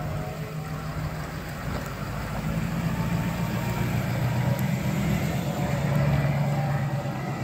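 A 2011 Ford F-250 Super Duty's 6.7-litre V8 diesel engine running near idle, a steady low hum that swells slightly louder a couple of times.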